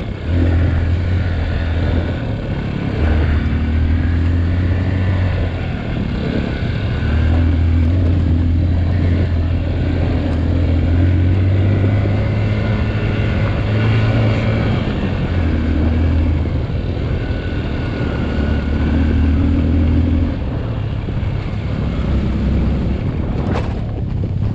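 Dirt bike engine running under load on a trail, its pitch rising and dropping every few seconds as the throttle is opened and closed.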